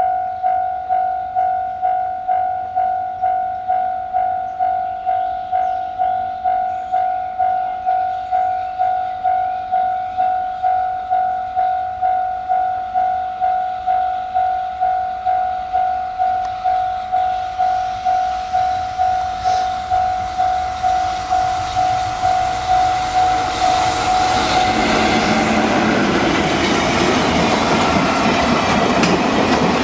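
Japanese level-crossing alarm ringing, a single-pitched ding repeated about twice a second. About 24 seconds in, a freight train hauled by an EF66 electric locomotive reaches the crossing, and the clatter of its wheels over the rail joints drowns out the alarm.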